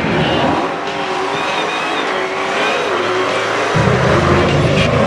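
Dodge Challenger's supercharged V8 revving through a burnout, its rear tyres spinning and squealing. The engine gets suddenly louder, with a heavier low rumble, a little under four seconds in.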